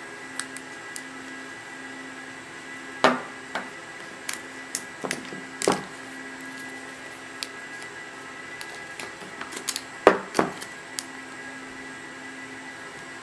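Handling noises from unpacking a cardboard phone box: scattered sharp knocks, clicks and rustles as the coiled USB dock cable is lifted out. The loudest knocks come about three seconds in and again near ten seconds. A steady low hum lies underneath.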